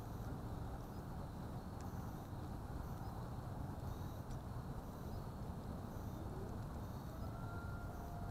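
Steady wind rumble on the microphone of a small camera lying in grass, with a faint steady tone coming in near the end.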